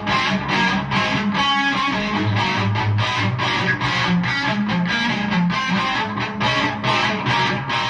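Outro music: rock with a distorted electric guitar strumming a steady, driving rhythm.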